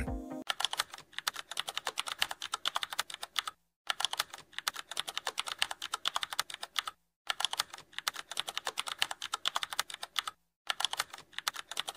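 Computer keyboard typing sound effect: a fast, continuous run of key clicks, broken by three short pauses.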